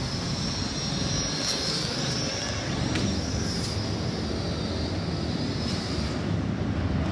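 Small hand-gesture-controlled toy quadcopter flying low, its four propellers giving a steady high whine whose pitch wavers slightly.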